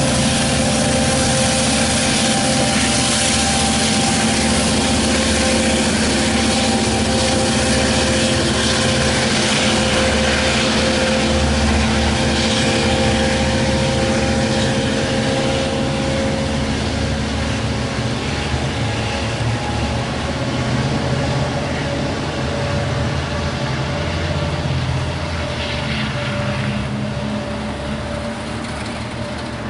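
Diesel engine of a Long Island Rail Road DE30AC diesel-electric locomotive working as its train pulls away. It is a steady low rumble with a constant whine above it, slowly fading over the second half as the train draws off.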